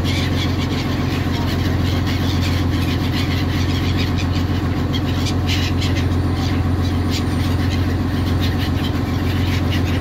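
A boat's engine running with a steady low drone.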